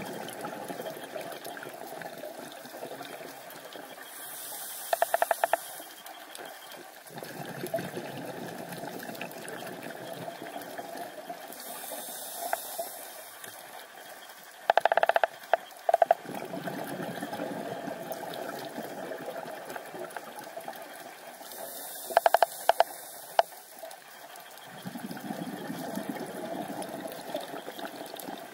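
Crayfish (red rock lobster) clicking in three short, rapid rattles of loud clicks, which are the loudest sounds. Underneath is the steady hiss and bubbling of a scuba diver's regulator breathing in and out.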